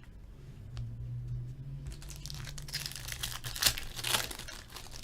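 Crinkling and tearing of a trading card pack's foil wrapper as a pack is opened, louder crackles about four seconds in.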